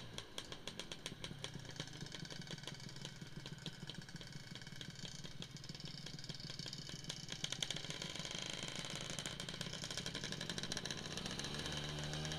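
Motor scooter engine running steadily while riding, with a rapid ticking beat from the engine over the road and wind noise.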